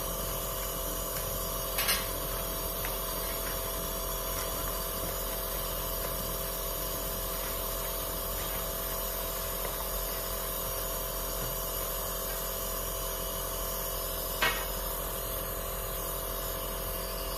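Compressor nebulizer running with a steady motor hum. Two brief clicks come about two seconds in and again near the end.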